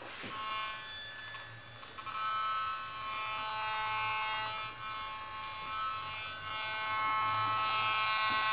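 BugHunter Professional BH-03 bug detector sounding its buzzing alarm tone as it picks up a radio signal. The buzz grows louder about two seconds in and again near the end.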